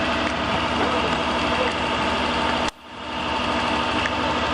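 A steady mechanical hum made up of several steady tones. About two and a half seconds in it drops out suddenly, then swells back within about half a second.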